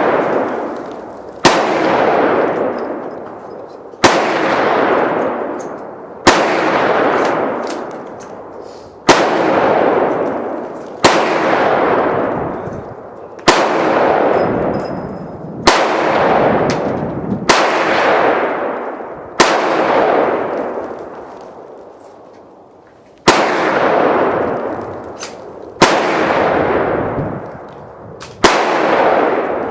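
Single gunshots fired one at a time, about a dozen roughly two seconds apart with one longer pause past the middle, each followed by a long echo that dies away.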